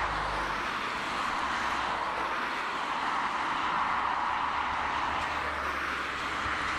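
GWR 57xx pannier tank steam locomotive working: a steady rushing hiss with a low rumble underneath.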